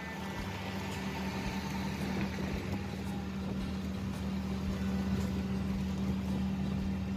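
Auto-rickshaw riding at speed: the engine runs with a steady hum under a constant rush of road and wind noise.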